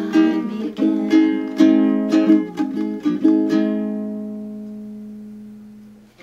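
Ukulele strummed through the song's closing chords, then a final chord left to ring and fade out over the last two seconds or so.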